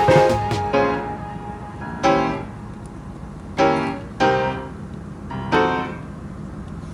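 Background music: slow piano chords, each struck and left to fade, about one every second or so.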